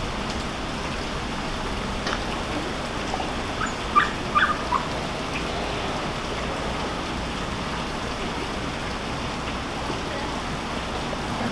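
Steady outdoor hiss, with a few short high-pitched animal calls clustered about four seconds in.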